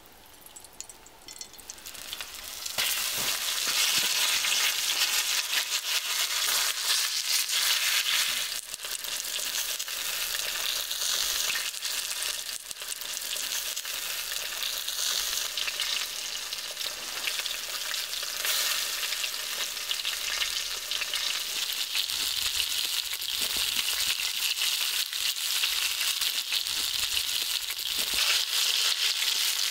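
Food hitting hot fat in a frying pan about two and a half seconds in, then frying steadily with a dense crackling sizzle.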